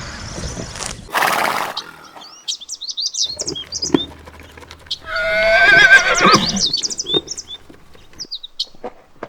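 A horse whinnying once, a loud quavering call about halfway through, after a short noisy burst near the start. High chirping from small birds runs throughout.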